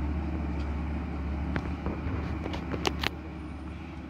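Low, steady drone of a truck engine on the ghat road, with a few sharp clicks between about a second and a half and three seconds in.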